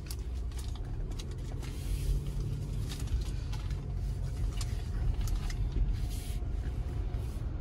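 Low rumble of a car's engine and tyres heard from inside the cabin as it rolls slowly, with a few light clicks scattered through it.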